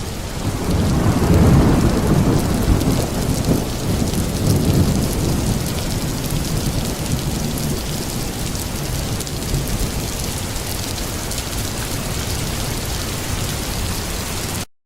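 Heavy rain with a rolling rumble of thunder, loudest in the first few seconds, settling into steady rain; it starts and cuts off abruptly.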